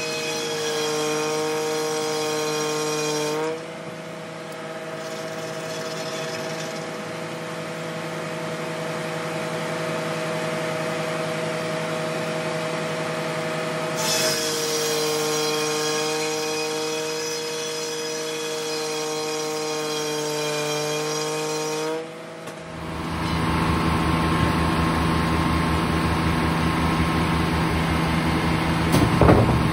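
Frick 00 sawmill's 48-inch carbide-tipped circular saw blade, driven by a three-cylinder Detroit Diesel, running and cutting through a log, sped up to double speed. It makes a steady whine whose pitch shifts about 3.5 and 14 seconds in. About 23 seconds in it gives way to a lower, steady machinery drone, with a short sharp knock near the end.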